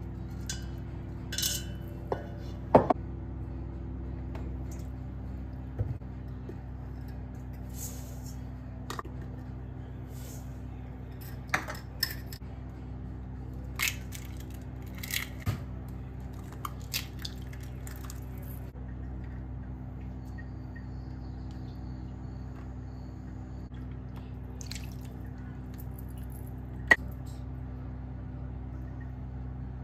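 Ingredients being added to a stainless steel mixing bowl: scattered sharp clinks and knocks of a spoon and a silicone spatula against the metal bowl, the loudest about three seconds in and near the end. A steady low hum runs underneath.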